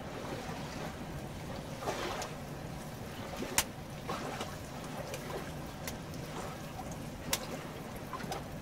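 Steady wash of flowing river water under a small wood cooking fire, with a few sharp pops from the fire, the clearest about three and a half and seven seconds in.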